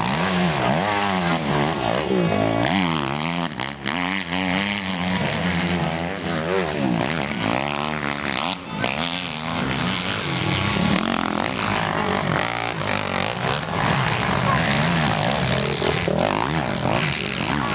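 Motocross bike engines revving hard, several bikes at once, their pitches rising and falling and crossing as riders open and close the throttle around the track and over jumps.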